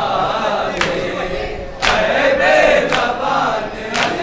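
A chorus of men singing an Urdu noha, a Muharram lament, in unison, with sharp slaps about once a second keeping the beat: the chest-beating of matam.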